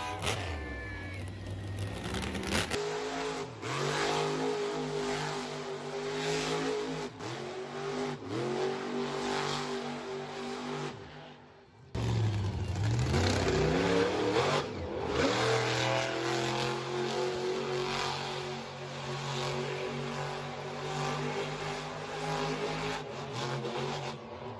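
Monster truck engines revving hard, their pitch repeatedly climbing and falling as the trucks are driven and spun in donuts. The sound drops away briefly about halfway through, then cuts straight back in loud with another truck revving.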